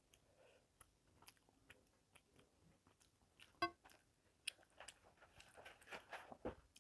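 Faint close-up eating sounds: soft mouth clicks and chewing of rice with fish curry. One sharper, ringing click a little past halfway, and a denser run of wet mouth noises near the end.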